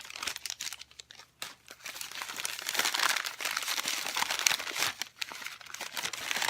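Packaging crinkling and crackling in irregular bursts as it is unwrapped by hand.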